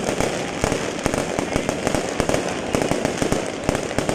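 Aerial fireworks bursting overhead: many close bangs and crackles with no pause, a continuous barrage of white crackling shells.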